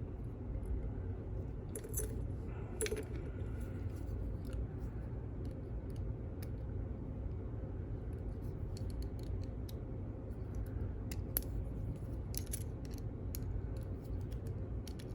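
Small metal tools clicking and scraping against a padlock's snap ring as it is worked at, in scattered light ticks that come more often in the second half, over a steady low hum.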